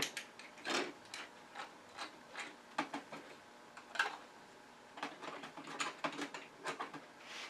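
Scattered light clicks and taps of handling: a red 3D-printed plastic gauge being fitted against the metal jaws of a four-jaw lathe chuck, with tools picked up and set down. Single sharp clicks come at irregular intervals, the loudest about four seconds in.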